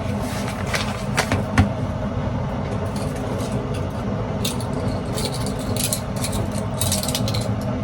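Water heating in a kettle: a steady rumbling hiss with a low hum. A few light clicks come about a second in, and some light clatter of utensils later on.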